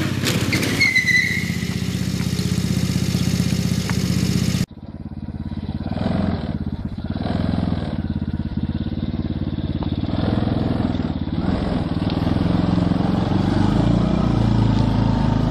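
Small go-kart-sized engines running: first a miniature muscle-car go-kart driving past, then, after an abrupt cut about five seconds in, a miniature army jeep's engine working under throttle as it climbs a dirt slope.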